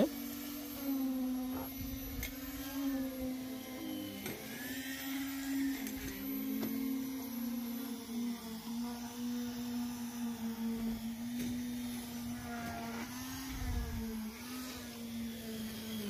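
Concrete needle vibrator running with a steady hum whose pitch wavers slightly as it consolidates the fresh concrete in a reinforced roof slab pour.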